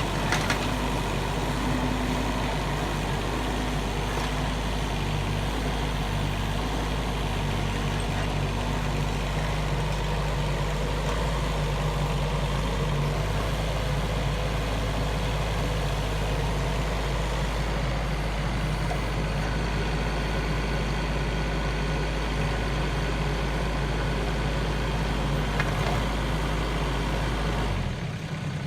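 Kubota K008-3 mini excavator's small diesel engine running steadily, with a couple of faint knocks.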